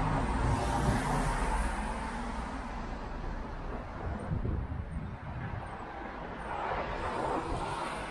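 Cars passing on a road, their tyre and engine noise swelling and fading: one going away in the first second or two, another coming up and passing near the end.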